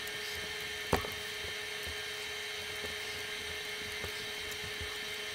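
Faint, steady electrical whine made of several pitched tones, with one small sharp click about a second in.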